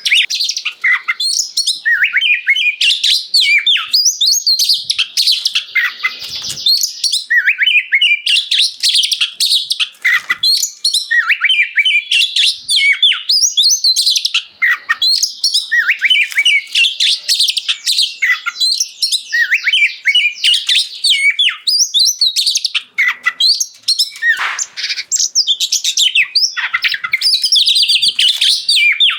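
Oriental magpie-robin (kacer) in full song: a long, nearly unbroken run of varied, quick whistled notes with fast rising and falling glides, broken only by brief pauses.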